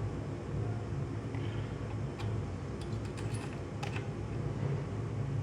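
A cluster of light clicks and taps from about two to four seconds in, as the soldering iron and the tip thermometer are handled, over a steady low hum.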